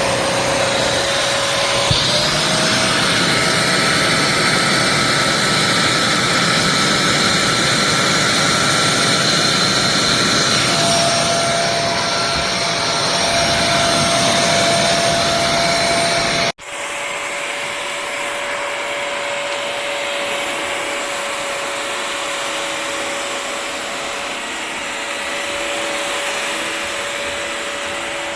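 Bissell CrossWave HydroSteam Pet wet-dry vacuum running steadily with a motor whine, its pitch stepping up slightly about two seconds in. Near two-thirds of the way through the sound cuts off for an instant and resumes quieter.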